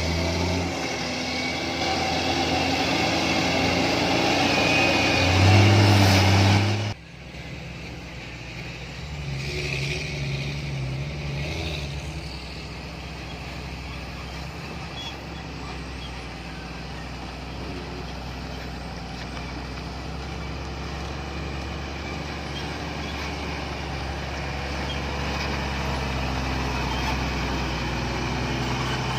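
Heavy diesel machinery running. A loud engine note holds steady for the first several seconds and cuts off abruptly about seven seconds in. A quieter, steady diesel drone follows and slowly grows louder near the end.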